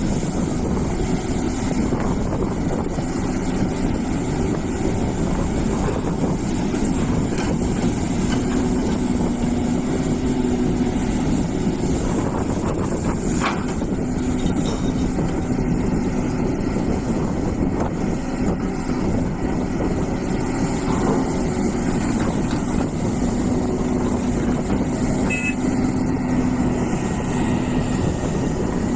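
Hitachi EX450 excavator's diesel engine running steadily as it digs, its note swelling and easing with the load, with a sharp knock about halfway through.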